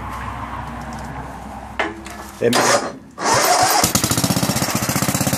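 Sears Suburban ST12 garden tractor engine being turned over after sitting a long time. A little over three seconds in it catches and settles into an even, rapid running beat.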